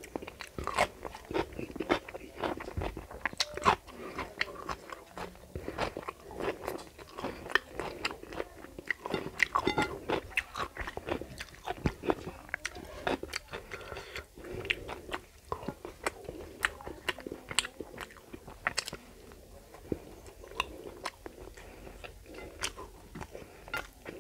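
A person eating close to the microphone: chewing and crunching with many quick, irregular wet mouth clicks and smacks, thinning out in the last few seconds.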